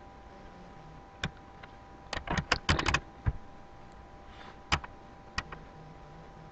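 Computer keyboard keystrokes. There is a single press, then a quick run of about eight presses around two seconds in, then a few scattered single presses.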